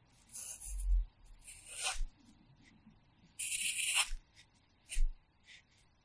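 Pencil writing on paper: three scratchy strokes of under a second each, then two quick short ticks near the end, as hiragana characters are drawn in a practice notebook. Soft low thuds come with the ends of several strokes as the pencil presses into the notebook on its pad.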